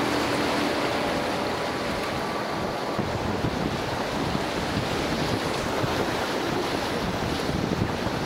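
River rapids rushing and churning around an inflatable kayak, a steady noise of whitewater with wind buffeting the microphone.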